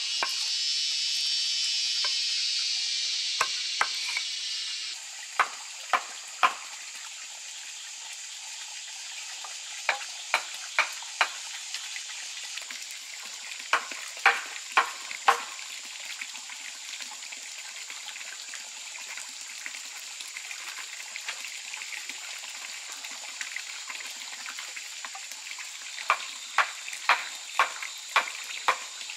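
Sharp wooden knocks in quick groups of three or four strikes, a few seconds apart, as wooden poles and pegs are knocked into place. A loud hiss for the first few seconds stops suddenly.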